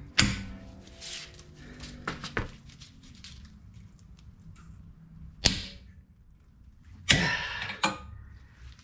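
About five sharp metallic clanks and clicks, the first ringing briefly, from steel tools working on the rear hub as the axle nut is torqued a little further to line up its cotter-pin hole.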